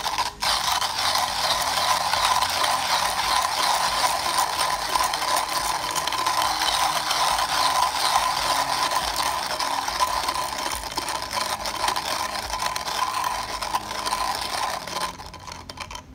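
Comandante C40 MK3 hand coffee grinder grinding a small dose of beans at a coarse 20-click setting, its Nitro Blade steel burrs crunching and rattling steadily. The grinding stops about a second before the end.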